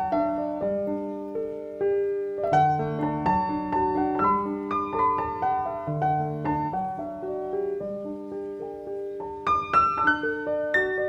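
Background piano music: a gentle melody of single notes over low chords.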